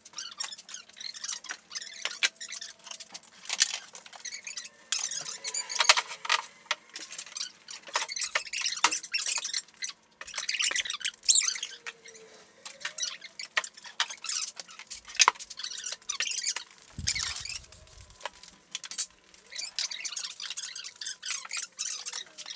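Workshop being tidied up: irregular clatter, knocks and scraping of tools, boards and other things being moved about, with the odd short squeak.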